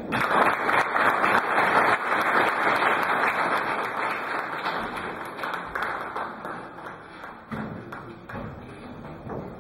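Audience applauding: a dense clatter of many hands, loudest in the first couple of seconds, then slowly dying away.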